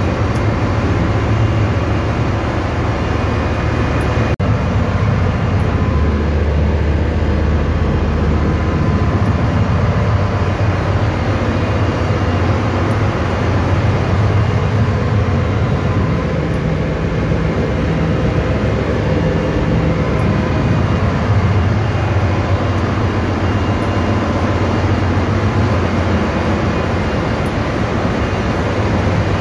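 Steady, loud engine-room machinery drone with a constant low hum, from auxiliary machinery running while the main engine stands stopped with its scavenge doors open for inspection.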